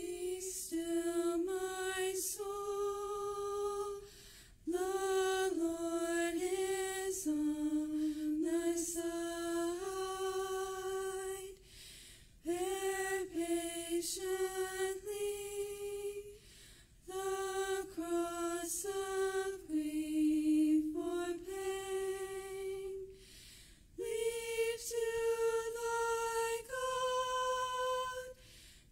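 Women's voices singing a hymn unaccompanied, in one melody line with held notes, in phrases of a few seconds with short breaks between them.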